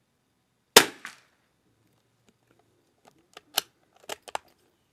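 A single .22 LR rifle shot about a second in, a sharp crack followed a quarter second later by a fainter second crack. Near the end comes a quick run of sharp clicks.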